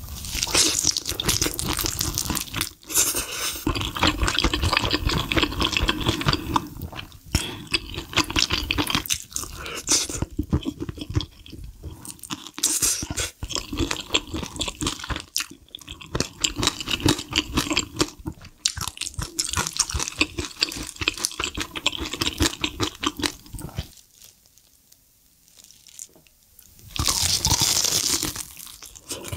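Close-miked chewing and crunching of sauced fried chicken and noodles, wet and crisp mouth sounds. The chewing stops briefly about three-quarters of the way through, then a loud crunchy bite into a breaded fried piece near the end.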